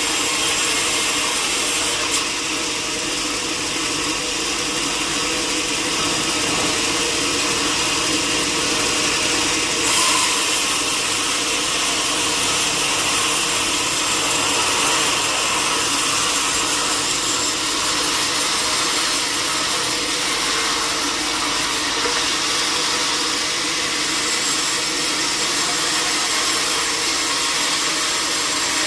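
Sawmill saw running steadily through a log, with a brief knock about ten seconds in.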